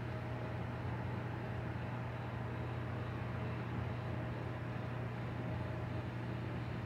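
Steady low hum with a faint steady tone above it and an even background hiss, with no distinct events.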